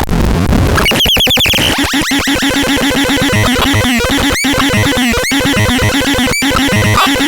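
Chaotic electronic synthesizer sounds: a noisy start, then a busy stream of quick chirping pitch sweeps and clicks over a repeating low note pattern.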